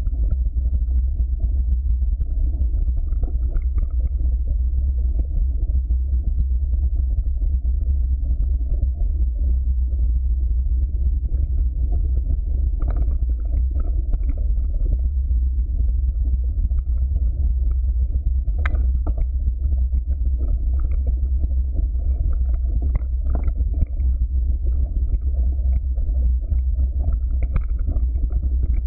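Mountain bike descending a dirt trail: a steady low rumble of wind buffeting the camera's microphone, mixed with knobby tyres rolling over dirt and leaves. A few sharp knocks and rattles from the bike hitting bumps stand out, the clearest about 13 and 19 seconds in.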